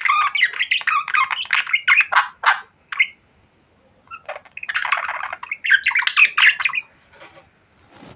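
Pet budgerigars chattering and squawking in quick runs of chirps and warbles, in two spells with a pause of about a second between them.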